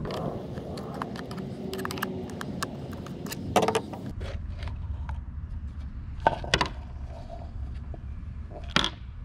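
Hand screwdriver turning out the screws of a pool pump motor's end cap, with a run of small clicks and scraping. A knock comes a few seconds in, then a few sharp clacks as the end cap is pulled off.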